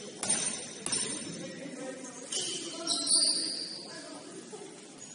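Basketball shoes squeaking on a gym floor: a few short, high squeaks about two and a half to three seconds in. There are a couple of sharp knocks near the start, over a low murmur of voices in the hall.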